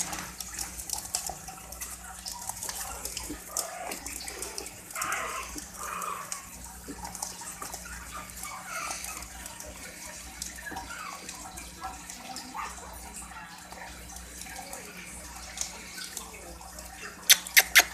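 Chihuahua puppies licking and slurping at bare feet: a stream of small wet smacking and lapping sounds, with short faint puppy whimpers now and then. A few sharp clicks near the end.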